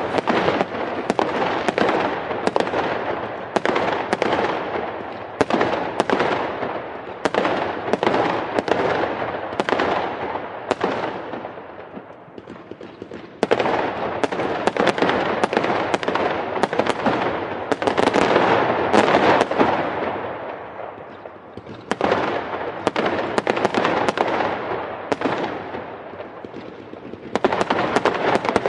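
Fireworks going off: a rapid string of sharp bangs over a continuous crackle. It eases off twice, about twelve and twenty-one seconds in, then picks up again.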